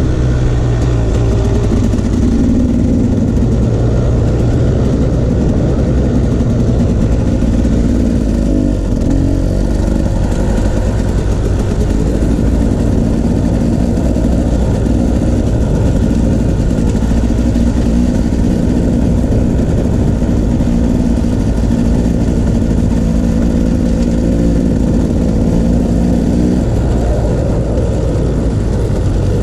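Off-road vehicle engine running at a fairly steady speed under a constant low rumble. It eases off briefly about nine seconds in and again near the end.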